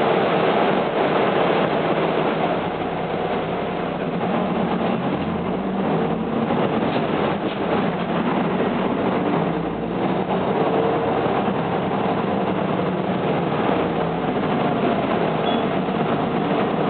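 Isuzu Erga Mio medium-duty city bus under way, heard from inside: a steady mix of engine and road noise with a faint whine.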